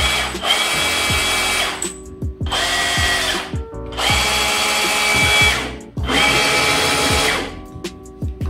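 Bosch Bulldog GBH18V-26 cordless brushless rotary hammer running free in drill mode. It is pulled up to speed four times in bursts of one to two seconds and winds down between them.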